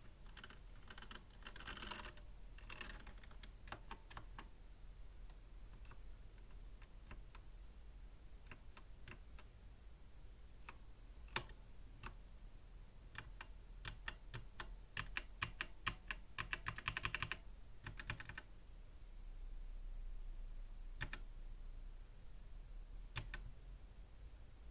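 Typing on an AOC GK500 mechanical keyboard with Outemu Red linear switches. Scattered keystrokes give way to a fast run of typing a little past the middle, followed by a few single key presses near the end.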